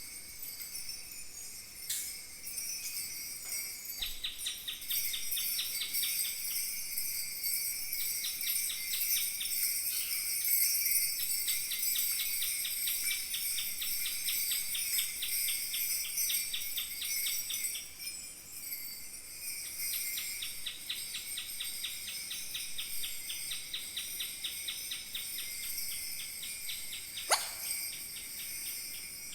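Kaskawillas, Mapuche bronze bells, jingling continuously in a shimmering wash that imitates falling water, with stretches of a fast, even shaken pulse. A single sharp downward swoop is heard near the end.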